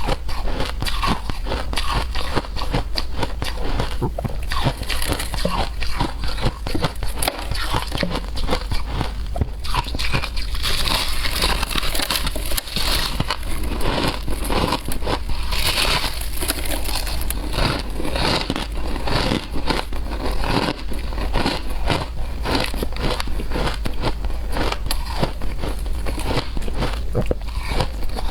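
Shaved ice being bitten and chewed close up: a dense, continuous crunching made of many small cracks, with a steady low hum underneath.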